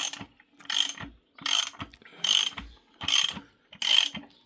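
Ratchet wrench worked back and forth, its pawl clicking in a short run on each stroke, about one stroke every 0.8 seconds, five or six strokes in all.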